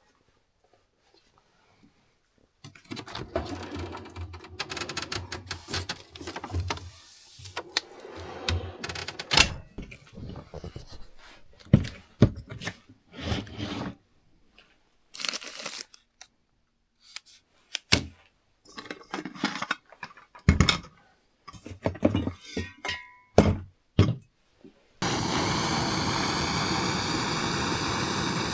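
Irregular knocks, clatters and scrapes of objects being handled. About 25 seconds in, they give way to a steady rushing noise.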